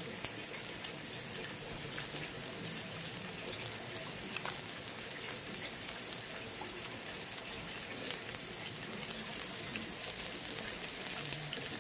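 Steady hiss with fine crackling from makchang and pork belly sizzling on a grill pan, with rain falling.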